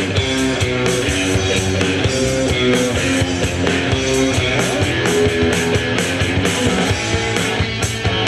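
Rock band playing live: an instrumental passage of guitar over a drum kit, without vocals.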